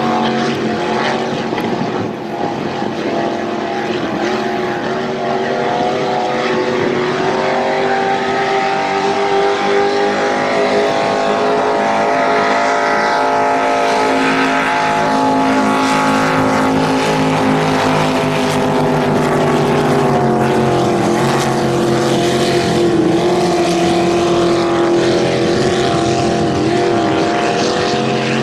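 Racing motorboat engines at full throttle, a loud, steady high-revving drone with several engine notes overlapping. The pitch climbs as a boat approaches and falls away about twenty seconds in as it passes.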